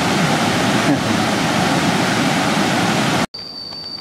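Waterfall rushing steadily over a rock slope. It cuts off abruptly about three seconds in and is replaced by a quieter, steady, high-pitched insect trill.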